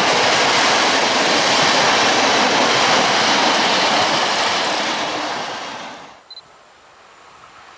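A train passing on the line, its steady noise of wheels on rails fading away as the end of the train goes by, gone about six seconds in.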